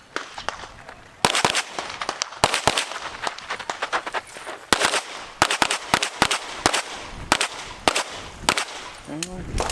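Rapid strings of pistol shots from a competition handgun on an IPSC stage, fired in quick bursts with short pauses between them as the shooter moves from target array to target array.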